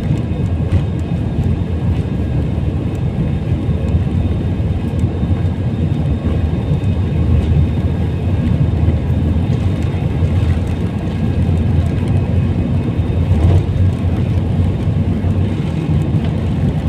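Airbus A320-200 jet engines at takeoff thrust during the takeoff roll, heard inside the cabin as a loud, steady roar with a deep low rumble.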